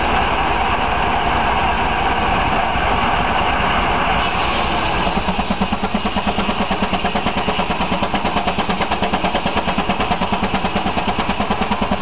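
40 hp Case steam traction engine running under load, driving a sawmill, with steady mechanical noise. About five seconds in a fast, even beat sets in, the engine's exhaust pulsing.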